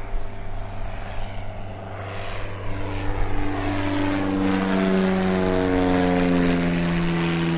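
Single-engine propeller light airplane flying low overhead just after takeoff. Its engine and propeller drone grows louder and drops steadily in pitch as it passes.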